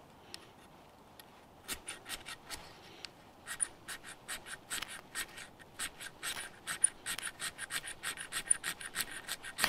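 Metal striker scraped over and over along a Walmart ferrocerium fire steel, many short rasping strokes that come faster, several a second, after a slow start, trying to throw sparks onto damp birch bark.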